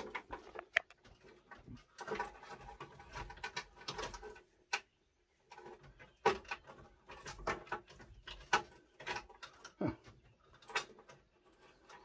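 Clicks and small knocks from the key and switches in a John Deere 410E backhoe cab, with no cranking or engine sound at all: the machine is dead and won't even power on, despite a newly fitted starter.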